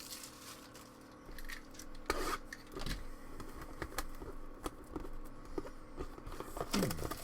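Small handling noises of a sealed box of trading cards being opened: irregular scrapes, clicks and rustles of cellophane wrap and cardboard, with a few sharper ticks.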